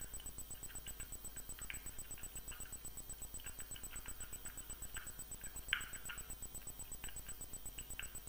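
Stirring petroleum jelly and nutgrass oil together in a plastic Vaseline tub: scattered light scrapes and clicks of the stirring utensil against the plastic, with one sharper click about six seconds in, over a low steady hum.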